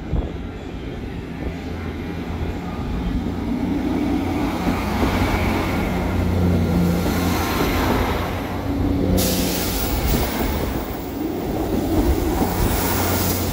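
South Western Railway diesel multiple unit running past along the platform, with a steady engine hum over wheel and rail noise. A sharper hiss comes in suddenly about nine seconds in.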